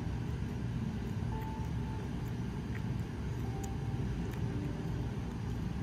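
A small dog gnawing a cooked ham bone, with a few faint sharp clicks of teeth on bone, over a steady low background rumble that is the loudest sound.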